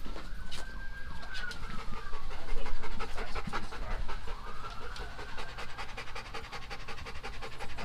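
Golden retriever panting rapidly in a quick, even rhythm.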